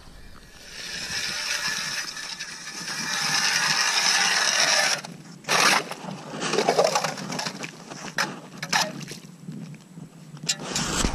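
Hand ice auger cutting through thin first ice: a steady grinding scrape that grows louder for about four seconds and cuts off suddenly as the blades break through. Several sharp knocks and short scrapes follow as the auger is worked in the hole.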